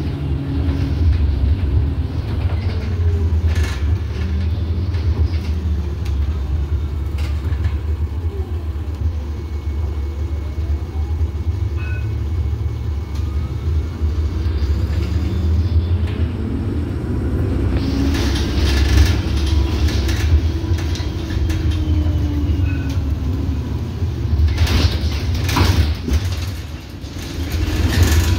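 Inside an Iveco Urbanway city bus under way: a steady low rumble from engine and road, with the drivetrain's whine rising and falling in pitch as the bus speeds up and slows. There is a brief lull near the end.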